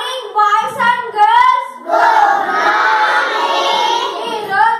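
Schoolchildren's voices: short high-pitched phrases called out for about two seconds, then many children chanting together in unison.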